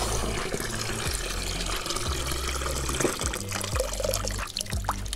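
Water pouring in a steady stream from an outdoor standpipe tap into a 10-litre enamelled iron bucket of dry corn kernels, splashing as the bucket fills to the top.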